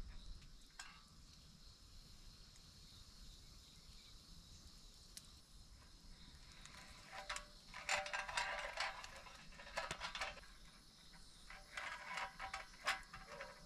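Small clicks and rustles of a thin wire and an S-hook being handled and tied onto a metal hanging-rack bar. They come in bursts from about seven seconds in, with a faint steady background before.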